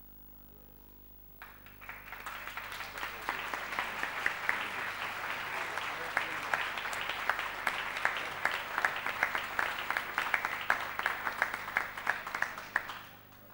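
Audience applauding, starting suddenly about a second and a half in and dying away shortly before the end, with individual sharp claps standing out.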